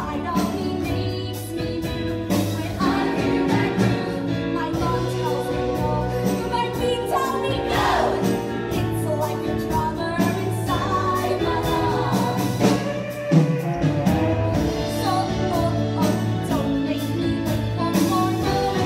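Musical-theatre number sung by a stage cast, with a live band accompanying.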